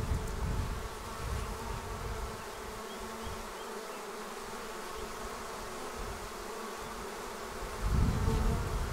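A honeybee swarm buzzing steadily, a many-toned hum from many bees at once. A low rumble comes in near the end.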